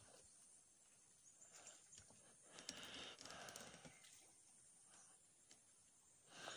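Near silence: faint outdoor background with a few soft clicks and a slightly louder rustle about three seconds in.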